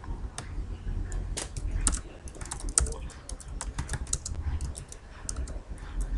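Computer keyboard keys clicking in quick, irregular runs of typing, over a steady low rumble.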